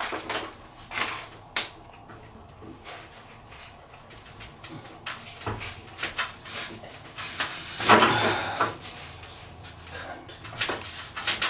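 An adjustable wrench clicking and scraping on a washing machine's transit bolt and the plastic around it, with scattered small metal knocks and a louder scraping stretch about eight seconds in. The bolts are being removed; they hold the drum in place for transport.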